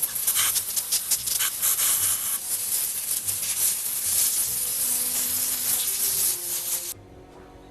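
A long spray hiss with crackly spattering, as carburetor parts are sprayed clean. It cuts off suddenly about seven seconds in.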